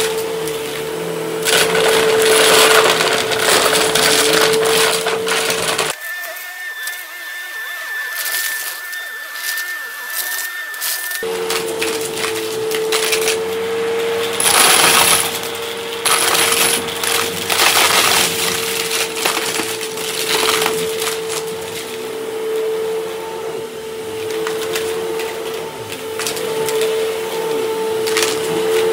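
Upright vacuum cleaner running with a steady motor hum as it picks up confetti dots off a rug, the small pieces rattling and crackling up through it. For about five seconds, starting some six seconds in, the low hum drops away to a thinner, higher whine.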